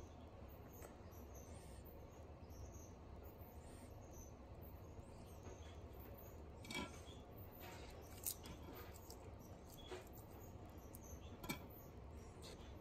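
Sulcata tortoise biting and chewing fresh grass: faint crunching and rustling, with about four sharper crunches in the second half, over a low steady background hum.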